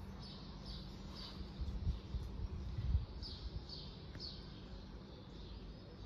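Swallows calling: two runs of about three short, high, slightly falling calls, the first just after the start and the second about three seconds in, over a low steady background rumble.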